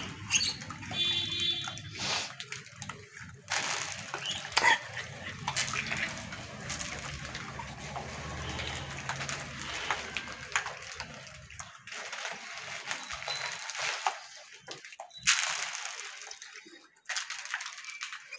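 Gray (Hanuman) langurs feeding on grain scattered on concrete: irregular scuffling and rustling, with a brief high squeak about a second in.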